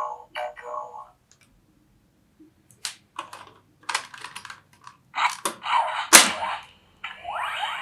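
Plastic clicking and rattling as a disc is lifted off a Ben 10 Disc Ultimatrix toy and another is fitted, with one loud snap about six seconds in. The toy's electronic sound effect fades out about a second in, and a new one starts with rising sweeps about a second before the end.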